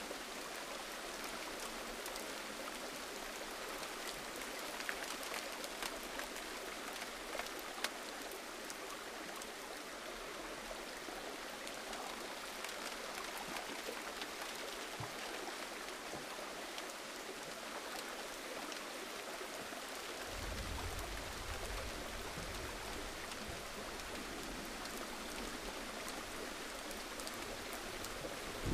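Steady gentle rain: an even hiss of falling rain flecked with the small ticks of single drops. A low rumble joins underneath about two-thirds of the way through.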